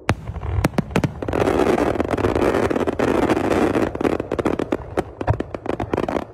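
Fireworks display going off: aerial shells bursting and fan cakes firing, in a dense stretch of rapid bangs and crackling in the middle, then a run of separate sharp reports near the end.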